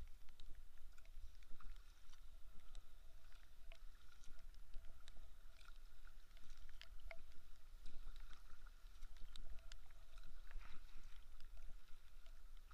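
A kayak being paddled, heard from a camera on its deck: the paddle blades dipping and water dripping and splashing off them, with many scattered ticks of drops and a low rumble underneath.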